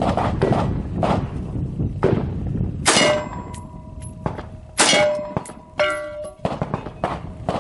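Rifle rounds (high-velocity .223 ballistic tips) striking an AR500 steel armor plate, each hit ringing out as a metallic clang. There are two sharp hits about two seconds apart, then a quick cluster of strikes about six seconds in.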